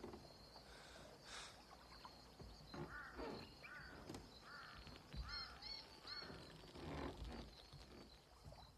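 Faint ambience of repeated short animal calls, some single and some in quick runs, over a steady high-pitched whine.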